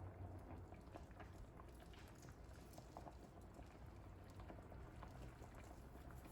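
Pot of chicken soup with spinner dumplings boiling faintly: small irregular bubbling pops over a low steady hum.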